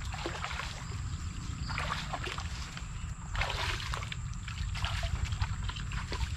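Shallow muddy water splashing and sloshing around a person's legs as they wade barefoot through it, in a few bursts about two seconds in, three and a half seconds in and near five seconds, over a steady low rumble.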